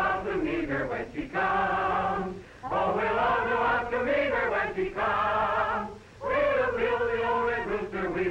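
A group of voices singing a song together, sustained sung lines broken by brief pauses between phrases.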